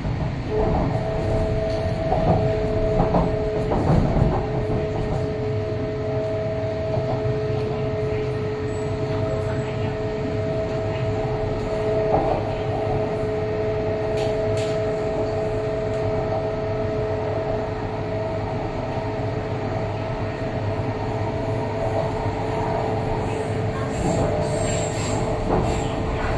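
MTR East Rail Line electric train running, heard from inside the carriage: a steady rumble of wheels and running gear, with two steady high tones that come in about half a second in and hold on.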